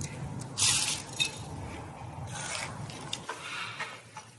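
Close-up chewing and crunching of food, with a sharp crunchy bite just under a second in and a softer one about two and a half seconds in.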